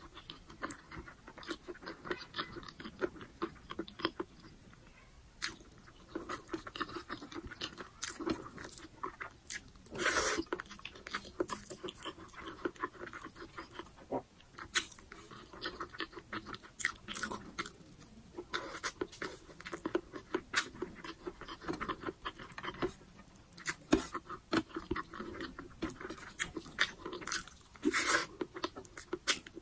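Mouth sounds of someone chewing and eating a meal of rice with her fingers: many short smacks and clicks, with one louder, longer noise about ten seconds in.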